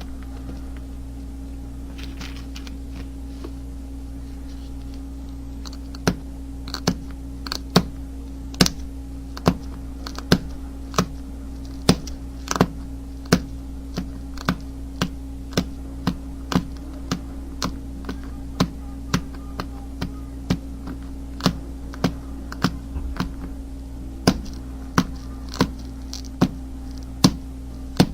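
Edge of a flint saw blade being chipped down with a knapping tool: sharp stone clicks, irregular at about one to two a second, starting about six seconds in. A steady electrical hum sits underneath.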